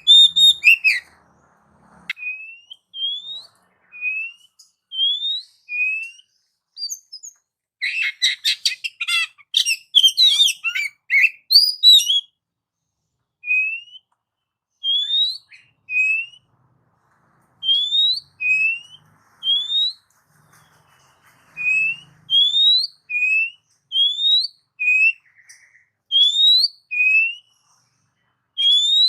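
Oriental magpie-robin (kacer) singing: a series of short rising whistled notes about one a second, broken by a burst of rapid, jumbled song about eight to twelve seconds in.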